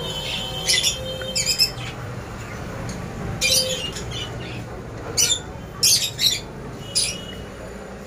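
Caged pet birds calling in short, sharp, high-pitched chirps and squawks, about one a second, over a steady low hum.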